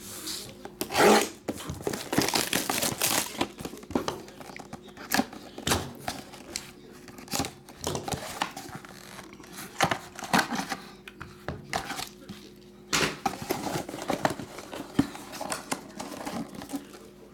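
Plastic shrink-wrap being torn and crinkled off a trading-card box in irregular crackling bursts, then cardboard flaps rubbing and tapping as the box is opened.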